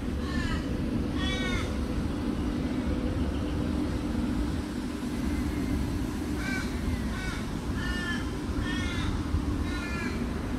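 A crow cawing: a series of harsh calls, two near the start and five more in quick succession from about six seconds in, over a steady low rumble.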